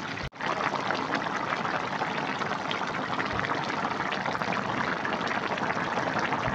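Cassava-leaf and chicken soup boiling hard in a metal wok: a steady bubbling and crackling. It is briefly cut off just after the start.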